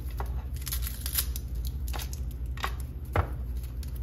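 Kitchen knife knocking on a wooden cutting board and working through dry onion skin while a whole onion is trimmed and peeled: a few sharp knocks, the loudest near the end, over a low steady hum.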